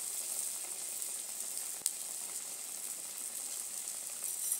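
Moong dal batter vadas deep-frying in hot oil in a kadai, a steady sizzle with one sharp click a little under two seconds in.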